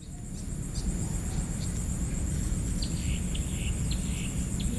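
Riverside jungle ambience: a steady high-pitched buzz of insects with scattered short chirps, over a constant low rumble.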